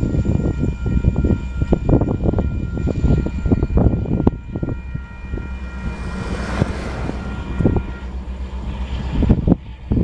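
Rail clatter and rumble from a loaded coal train moving away past the crossing, louder in the first few seconds. Over it a grade-crossing warning bell rings steadily and stops about eight seconds in as the gates finish rising.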